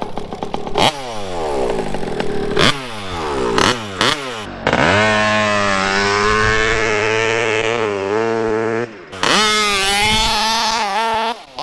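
Two-stroke petrol engine of a fifth-scale RC car revving. Several falling-pitch sweeps with sharp clicks come in the first few seconds, then a held high-rpm run with a wavering pitch, and it cuts off suddenly near the end.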